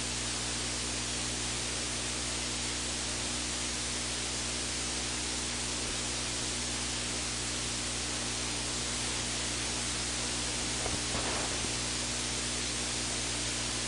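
Steady electronic hiss of the recording's audio line, with a low, even hum underneath.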